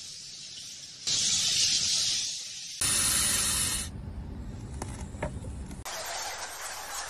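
Snake hissing: two long hisses, the first about a second and a half, the second about a second.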